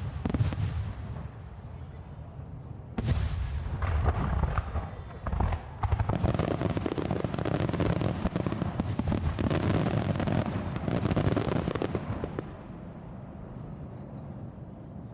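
Aerial fireworks bursting close by: a loud bang about three seconds in, then from about six to twelve seconds a dense run of crackling bursts, which dies down near the end.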